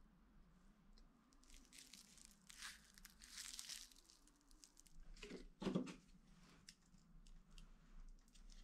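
Faint crinkling and rustling of clear plastic film wrapped around a cast bronze sword blade as it is handled, with a single knock a little past halfway.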